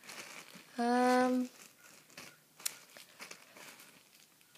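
Clear plastic bags crinkling and rustling as toast-shaped squishy toys in their packaging are handled and set down, with small clicks and scrapes. About a second in, a short held vocal tone on one steady pitch, the loudest sound.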